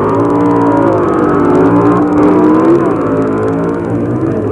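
Drag racing cars' engines at full throttle, launching off the line and accelerating down the strip, the engine pitch climbing and then dropping a little under three seconds in.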